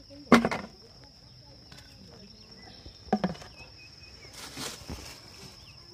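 A steady high-pitched insect drone, like crickets, runs throughout. Two sharp knocks cut across it, the loudest just after the start and a second about three seconds in, followed by a short rustle.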